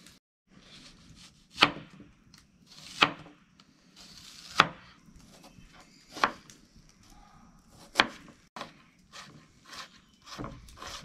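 Knife chopping an onion on a bamboo cutting board: single sharp chops about every second and a half, then quicker, lighter cuts near the end.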